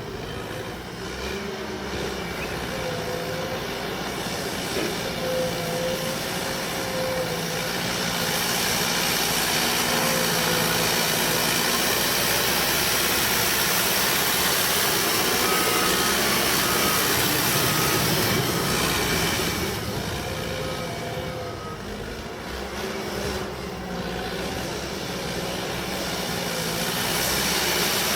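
Cat D5K bulldozer's diesel engine running with a wavering whine. It works louder and harder under load for about twelve seconds in the middle, eases off, then builds again near the end. A run of evenly spaced beeps sounds during the louder stretch.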